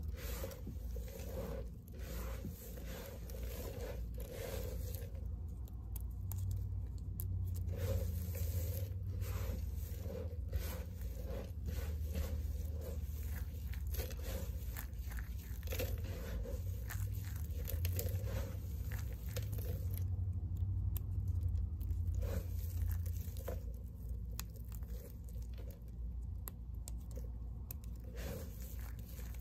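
Hands squeezing and stirring a heap of dry green and white bar-soap shavings, the flakes crunching and crackling in many small crisp clicks, over a low steady rumble.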